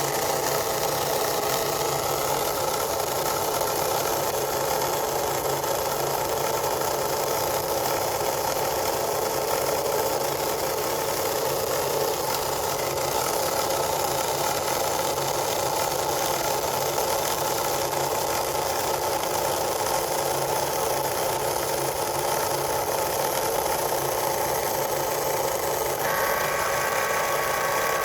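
Cricut Explore Air 2 cutting machine running with a steady grinding noise, the fault the owner is showing. A higher-pitched whine joins in about two seconds before the end.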